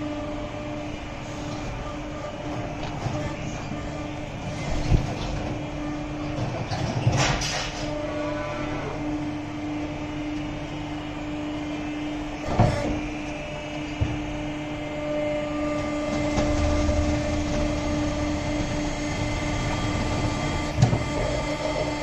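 VARMO feeding machine running with a steady, even motor hum, with a few sharp knocks now and then.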